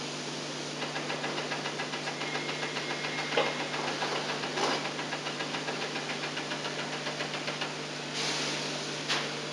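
Rapid, even clicking at about four to five clicks a second, typical of a ratchet undoing the seat-rail screws, broken by a few single clunks. A steady low hum runs underneath.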